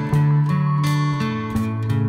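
Music played on acoustic guitar, with chords strummed several times a second.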